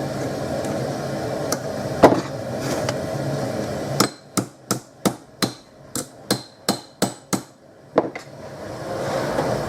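Hammer blows on hot strip steel: one strike about two seconds in, then about a dozen quick ringing strikes, roughly three a second, to take a twist out of the steel. A steady gas forge burner runs under it before and after the strikes.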